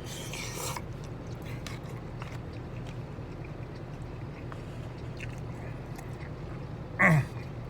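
Close-miked chewing and small eating noises, scattered clicks and squishes, over a steady low hum. There is a brief rustle at the start and a short vocal sound near the end.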